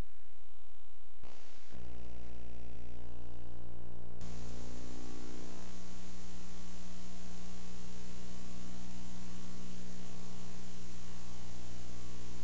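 Steady electrical hum and buzz from a VHS tape's playback during a blank, glitchy stretch between recordings. The hum changes in tone about a second and a half in and again about four seconds in, then holds steady.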